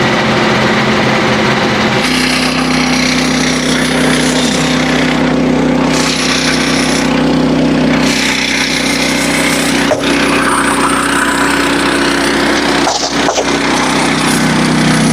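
Frontier OS27 portable band sawmill running, its small gas engine steady while the band blade cuts a red oak log. The engine note changes about two seconds in, and a single sharp knock comes near ten seconds.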